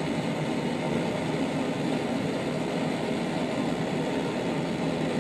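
Campingaz cartridge blowtorch burning with a steady, even hiss of flame while a knife blade is held in it to heat.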